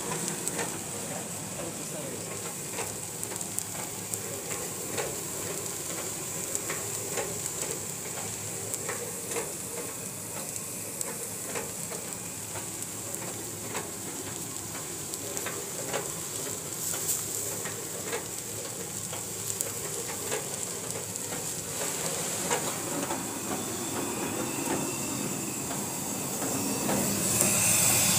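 Puffed rice making machine running with a steady hiss, dotted with many small irregular crackling ticks of rice grains tumbling in its rotating mesh sieve drum. It grows louder near the end.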